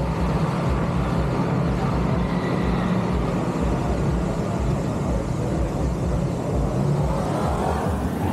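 Drift car engine idling steadily with an uneven low beat.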